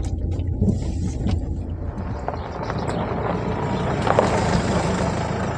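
Vehicle on the move: a steady low engine rumble with road and wind noise that grows louder and fuller about two seconds in.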